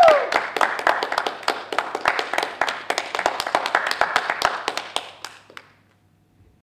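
A small group of four people clapping their hands, the claps thinning out and stopping about five and a half seconds in.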